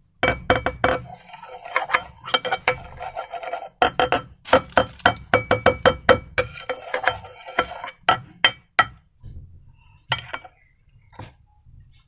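Close-up wet, sticky clicking and crackling of slime being squished and stirred, in dense clusters of rapid clicks. It thins out to a few scattered clicks after about nine seconds.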